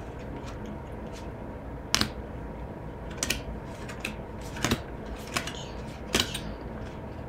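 Baseball cards being flipped through by hand, the stiff cardstock making irregular light clicks and slides as each card is pushed off the stack, the sharpest click about two seconds in.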